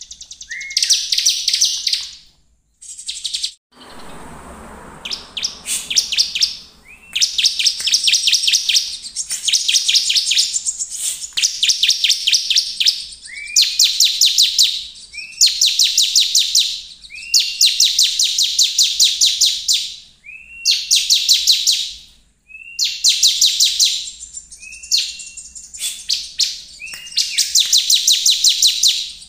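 Bar-winged prinia (ciblek) singing hard in repeated phrases about every two seconds. Each phrase is a short rising note followed by a fast, high, ticking trill.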